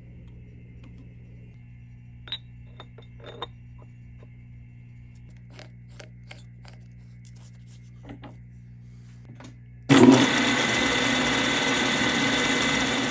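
Light metal clicks and taps as a Jacobs drill chuck is tightened with a chuck key and a spot drill is fitted, over a low steady hum. About ten seconds in, the milling machine's vertical-head spindle starts suddenly and runs loud and steady with a faint whine, ready for spot drilling.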